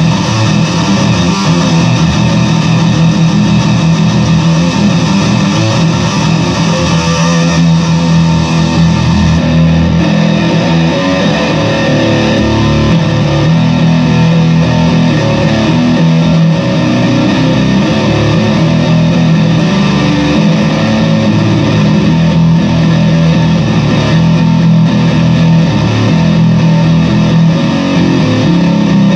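Fender Squier Bass VI six-string bass played through a fuzz pedal: a thick, distorted tone with long-held low notes, loud and continuous.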